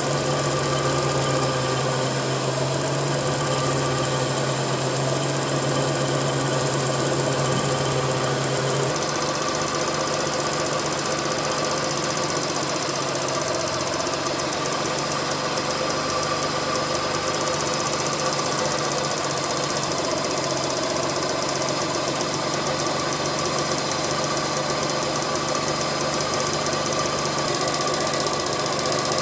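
Suzuki Cappuccino's small three-cylinder engine running steadily. A low steady hum in it changes about nine seconds in.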